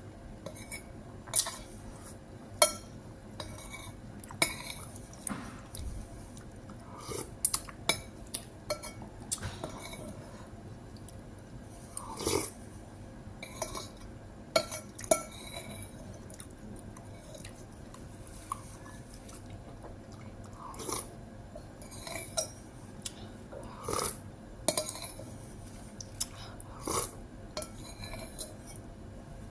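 Cutlery clinking and scraping against a plate during a meal, in irregular sharp taps scattered throughout, a few of them ringing briefly.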